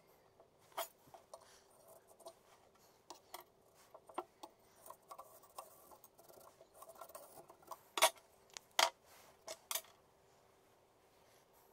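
Small clicks, taps and light scrapes of a rusty axe head, a steel ruler and a paint marker being handled on a wooden workbench, with two sharper knocks about eight and nine seconds in.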